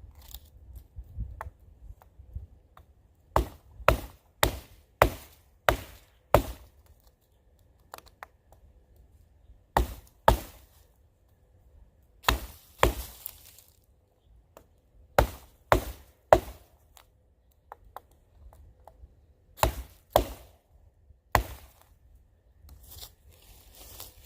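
Sharp wooden knocks of a baton striking the back of a pocket knife blade, driving it at an angle into a dead standing tree to split out small chips. The strikes come in runs of two to seven, about two a second, with short pauses between.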